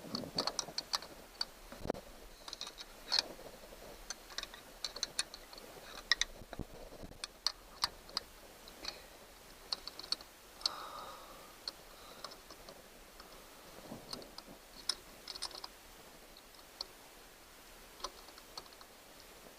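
Irregular light clicks and metallic taps of hand tools and small parts being worked on an engine distributor while the breaker points and condenser are fitted and adjusted.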